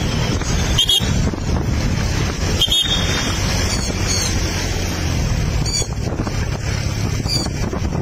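Heavy wind buffeting the microphone while riding along at speed, a steady loud rush of noise, with a few brief faint high chirps every second or two.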